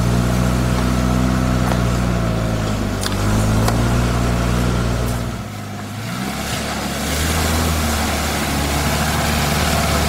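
Off-road 4x4 engines working on a muddy track: first an engine revving up and down twice, then, after a short break, a Suzuki Vitara's engine running steadily under load as it drives through mud and water.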